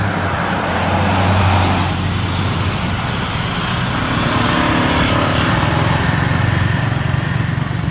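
Road traffic: motor vehicles driving past, a steady engine hum with tyre noise, another vehicle passing about halfway through.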